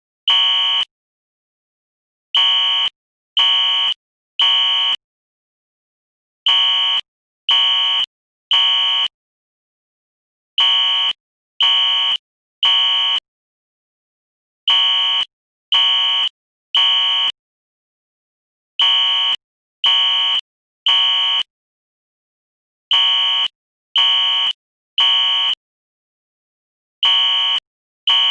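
Fire alarm sounding the temporal-three evacuation pattern: three beeps about a second apart, then a pause of about a second and a half, repeating roughly every four seconds.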